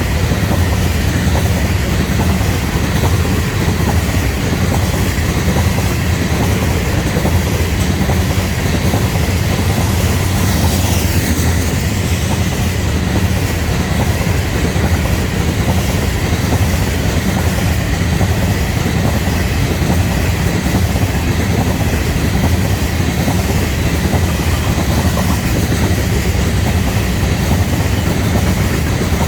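Florida East Coast Railway freight train rolling past close by: a loud, steady rumble of the cars' wheels on the rails, with a thin steady high tone over it.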